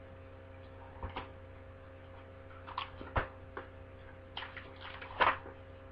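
Scattered light clicks and taps of a folder and other small objects being handled, irregularly spaced and loudest about five seconds in, over a steady low electrical hum.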